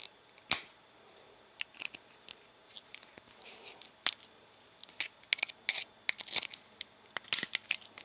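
Needle-nose pliers prying the metal top off a disposable lighter: irregular small sharp clicks and scrapes of metal on metal and plastic, with one louder click about half a second in and a quicker run of clicks in the last few seconds.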